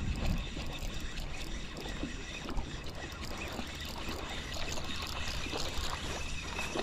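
Spinning reel being cranked to bring in a hooked barracuda, with faint clicking under a steady hiss of wind and water.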